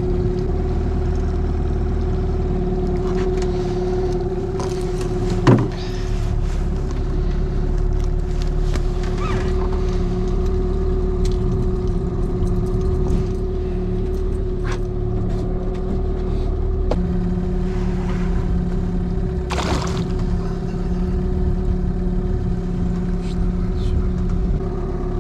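Boat motor running steadily, a constant hum with one held tone. A sharp knock about five and a half seconds in, and a brief burst of noise near twenty seconds.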